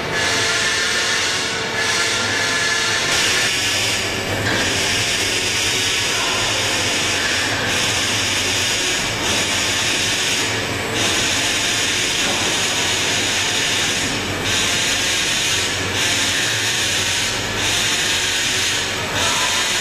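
Machinery of a CNC punching line for lorry chassis beams running in a factory hall: a loud, constant hiss, with stretches of louder, higher hiss that switch on and off every few seconds.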